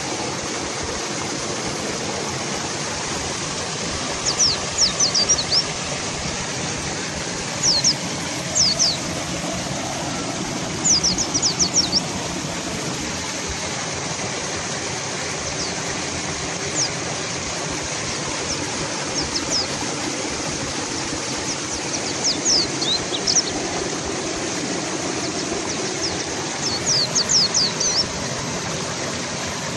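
Steady rush of a fast-flowing river, with a mountain white-eye calling over it in short bursts of quick, high, down-sweeping chirps every few seconds.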